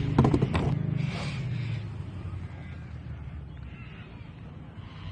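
A quick run of sharp knocks against the plastic kayak hull, then a short rustle, as the just-landed salmon is handled. Behind them a steady boat engine hum fades out about two seconds in.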